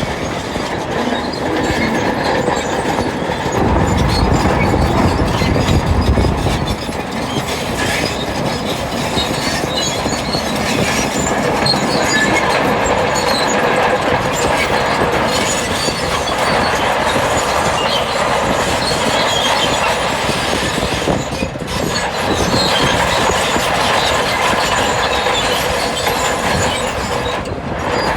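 A bulldozer working: its steel crawler tracks squeal and clank steadily over the running engine. About four to seven seconds in, a louder, deeper stretch comes in.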